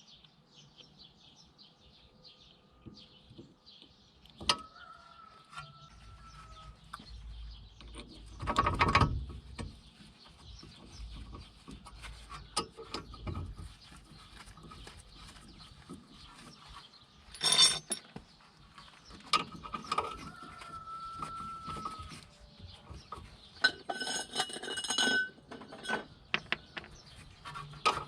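Hand tools working on the front wheel hub and brake assembly: scattered metal clinks and knocks, with a few louder clatters, and a ratchet wrench clicking in quick runs near the end.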